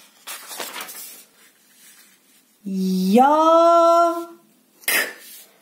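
A paper worksheet page being turned over with a papery rustle, followed by a voice slowly drawing out the syllable "yaaa", rising in pitch, with a short sharp "k" about five seconds in, sounding out the Turkish word "yak".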